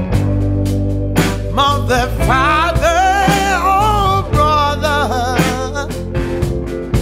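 Rock band playing an instrumental passage of a song. A pitched lead line with bends and wide vibrato comes in about a second and a half in and fades out near six seconds, over held low bass notes, with drum hits mostly at the start and end.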